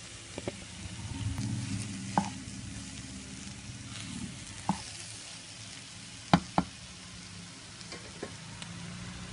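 A spoon stirs crumbled, cooked chana dal into a frying tomato masala in a pan, with a low sizzle and scraping. Several sharp knocks of the spoon against the pan stand out, the loudest two in quick succession past the middle.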